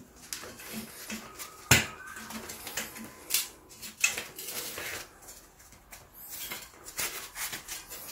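Bicycle tyre being worked back onto its rim by gloved hands: scuffing of glove and rubber against the wheel, with scattered clicks and knocks, the sharpest a little under two seconds in.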